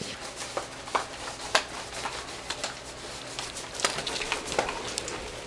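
Handling noise: scattered light taps and clicks over soft rustling, as a person moves about close to the camera.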